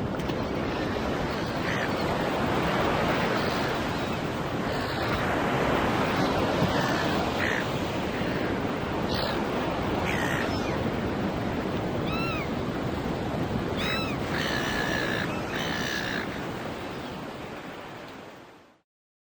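Ocean surf washing steadily on a beach, with gulls calling now and then, several short calls in a row in the second half. The sound fades out near the end.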